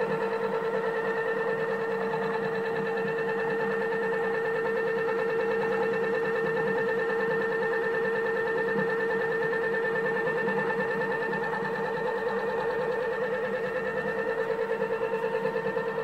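Heavy flywheel spinning fast on its pivot shaft in a homemade rig, giving a steady mechanical hum and whine with a rapid flutter.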